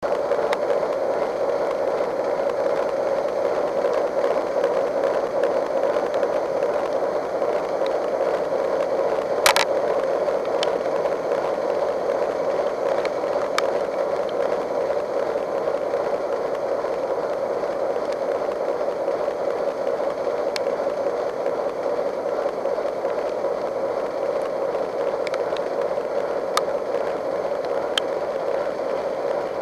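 Steady mechanical hum of a locomotive heard from inside its cab, with a few sharp clicks. The loudest click comes about nine and a half seconds in.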